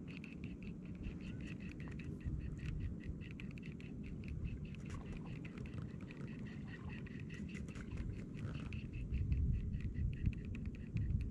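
Fishing reel being cranked on a lure retrieve: a quick, even run of fine ticks from the reel over a steady low rumble, which gets louder near the end.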